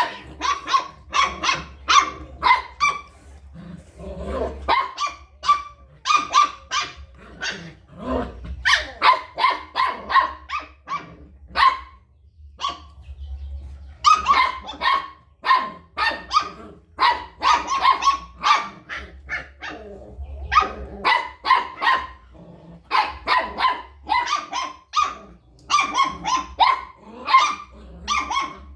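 A dog barking over and over in quick runs of short, sharp barks, several a second, with brief pauses between the runs.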